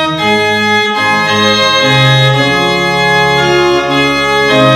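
Organ music: sustained chords held and changing every second or so.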